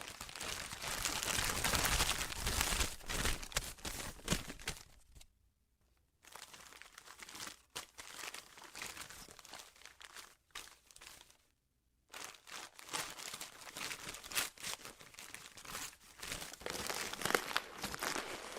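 Wrapping paper being crumpled and torn as presents are unwrapped, a dense irregular rustling with two short silent pauses, about five seconds in and again about twelve seconds in.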